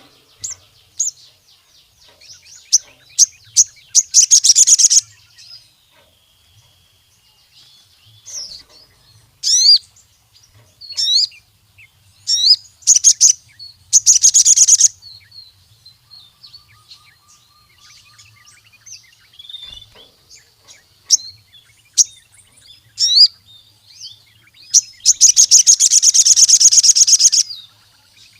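Sogon sunbird singing: sharp high chirps broken by several fast rattling trills, the longest and loudest near the end.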